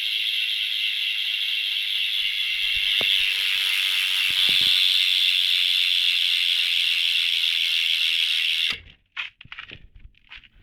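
Primo Mix cassette hub on a BMX rear wheel freewheeling: the pawls clicking so fast they blend into a steady, high-pitched ratcheting buzz. It cuts off suddenly near the end, followed by a few light clicks.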